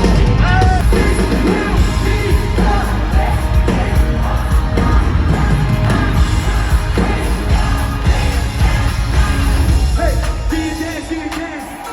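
Pop-style music with singing over a heavy bass beat; the bass drops away about ten and a half seconds in.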